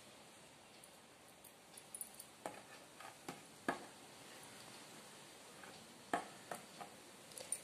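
Faint, scattered small clicks and taps of hands at close work, setting rose petals and champak flowers onto a needle and thread for a garland. They start about two seconds in, with two sharper clicks in the middle and later.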